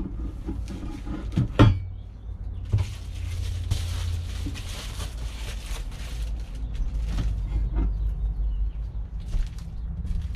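A knock about one and a half seconds in, then several seconds of crinkling and rustling as a roll of silver reflective foil insulation is handled, followed by a few small knocks, over a steady low rumble.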